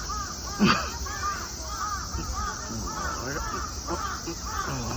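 A flock of birds calling, with many short arching calls overlapping continuously and one louder call about a second in.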